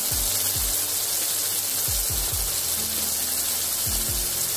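Turmeric and other ground spices frying in hot mustard oil in a steel kadai: a steady sizzle. Under it, deep falling thumps come in pairs about every two seconds, a beat from background music.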